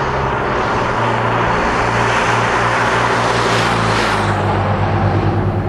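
Motorcycle riding past at speed: its engine and rushing noise build to a peak about four seconds in, where the engine note drops in pitch as it goes by, then the rush thins out.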